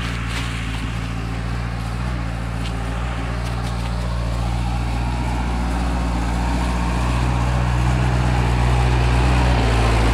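Willys-type jeep engine running at a steady, low engine speed as the jeep crawls along a dirt track, growing louder toward the end as it comes close. A few light knocks sound in the first second.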